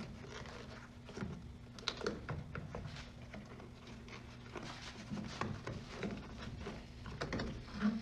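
Scattered light clicks and knocks of hand tools and metal parts being handled, over a steady low hum.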